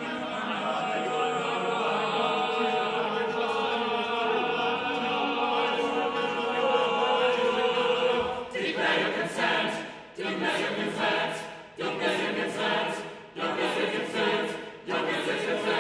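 Sixteen-voice mixed chamber choir singing a cappella: a held chord that swells for about eight seconds, then breaks into short, sharply attacked chords with hissing consonants, repeated about every second or so, each ringing off in the hall.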